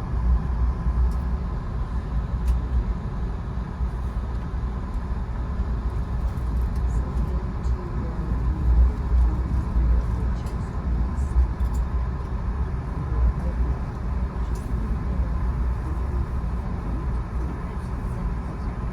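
Via Rail passenger train under way: a steady low rumble with a faint, even whine above it.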